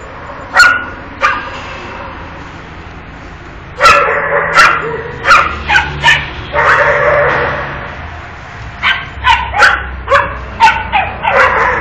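Dog barking in short, sharp barks: two near the start, then a quick run from about four seconds in, and another rapid series from about nine seconds on.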